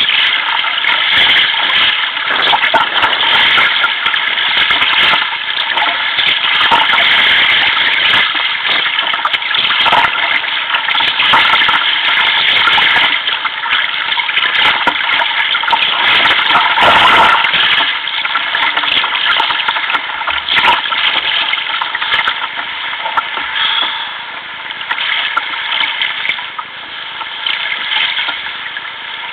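Choppy sea water rushing and splashing against a sea kayak's hull and deck as it moves through the waves: a loud, continuous wash that eases a little near the end.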